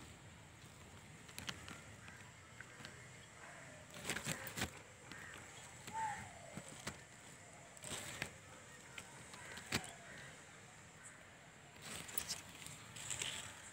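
Dry grass of a woven bird's nest rustling and crackling against a hand-held phone, in scattered short bursts, with a brief falling squeak about six seconds in.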